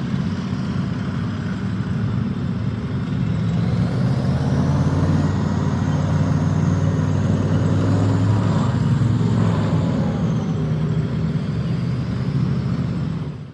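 Engine running steadily with a low drone, fading out right at the end.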